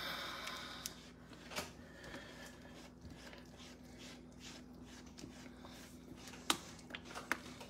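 Spoon stirring thick, simmering milk gravy in a cast-iron skillet: faint scraping with a few soft clicks, several of them near the end, over a faint steady hum.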